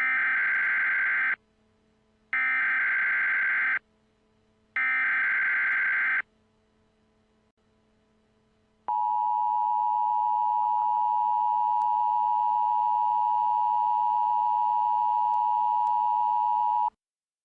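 Emergency Alert System tones: three short data bursts of the SAME header, each about a second and a half long, then after a pause of a couple of seconds the steady two-tone EAS attention signal, held for about eight seconds before cutting off.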